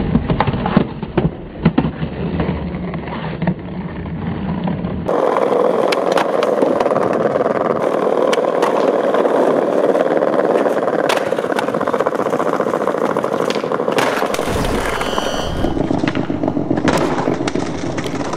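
Skateboard wheels rolling and grinding along concrete ledges, a steady rough rolling noise broken by sharp clacks of the board.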